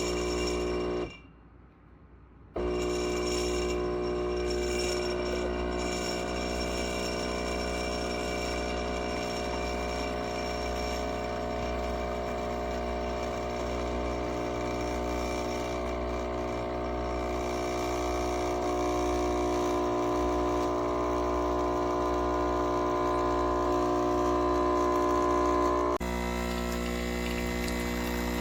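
CASABREWS 20-bar espresso machine's pump running with a steady electric buzz. The buzz cuts out for about a second and a half shortly after the start, then resumes, and shifts in tone near the end.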